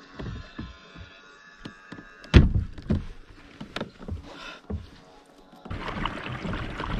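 Hollow knocks and thunks on a plastic fishing kayak, the loudest about two seconds in, then a steady rushing noise from near the end.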